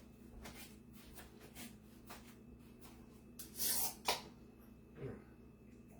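Faint clicks and handling noises over a low steady hum, with a short hiss about three and a half seconds in followed at once by a sharp click.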